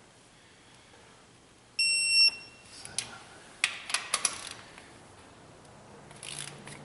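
Digital torque wrench giving one electronic beep of about half a second as it reaches its set torque on a cylinder head bolt, followed by a handful of sharp metallic clicks.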